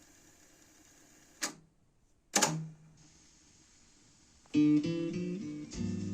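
JVC KD-A55 cassette deck: faint tape hiss, then two sharp mechanical clicks about a second apart with a moment of dead silence between them, like the deck's transport keys being worked. About four and a half seconds in, acoustic guitar music starts playing back from the tape over the hiss.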